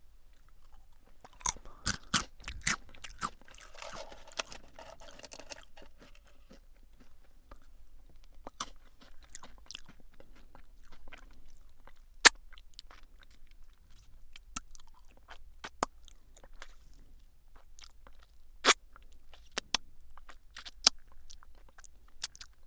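Close-miked crunching and chewing of crisp potato sticks (Jagabee, lightly salted). A quick run of sharp bites near the start gives way to a few seconds of steady chewing, then single loud crunches every few seconds.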